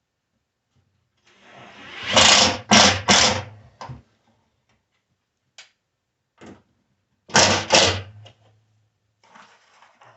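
Power driver running in short bursts, driving screws into wood: three quick pulses, then two more a few seconds later, with light knocks in between.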